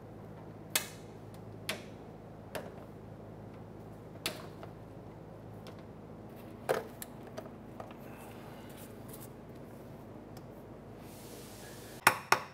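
Sharp, scattered clicks of a plastic trim tool prying at plastic push-pin retainers in a car's under-engine splash shield, over a steady low hum. A quick run of clicks comes near the end.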